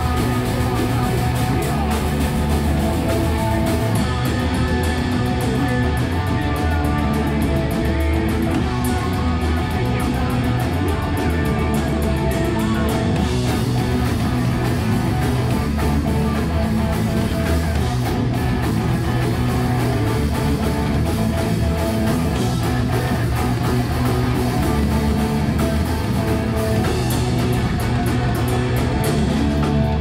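Rock band playing live: electric guitars over a drum kit, loud and steady, with busy cymbal strokes for stretches.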